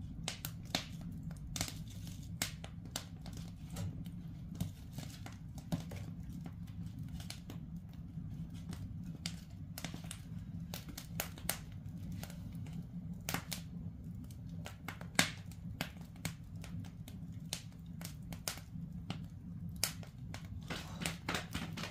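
Wood fire crackling and popping in a traditional Korean ondol firebox (agungi), with irregular sharp snaps over a steady low rumble.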